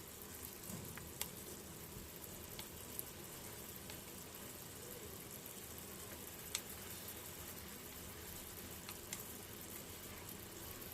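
Fried chicken wings in a fish-sauce glaze sizzling softly in a pan, a steady hiss with a few scattered pops.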